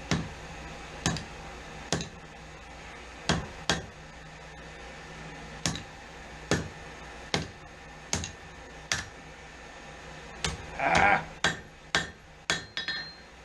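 Hand hammer striking hot steel on an anvil: single blows at irregular spacing, roughly one a second, coming faster near the end, over a steady low hum.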